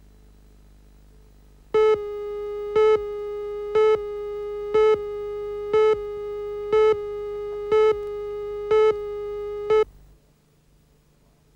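Videotape countdown leader tone: a steady mid-pitched tone, louder in a short beep once a second, nine beeps, cutting off abruptly about ten seconds in. A faint hum comes before it.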